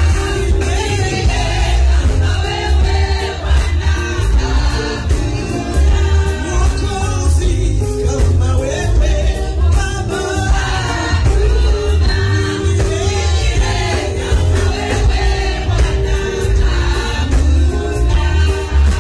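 Live Kalenjin gospel song: a woman sings lead into a microphone while a group of women sing along, over amplified backing with a heavy bass and a steady beat through PA speakers.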